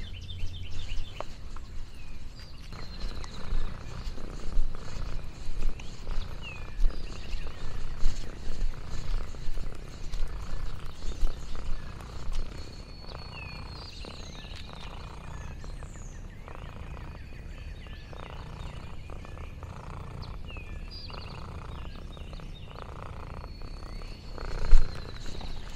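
Domestic cat purring close to the microphone: a continuous low rumble that pulses in and out. Irregular soft knocks and rustles are heard over roughly the first half.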